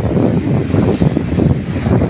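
Tugboat engine running steadily, a low rumble, with wind buffeting the microphone.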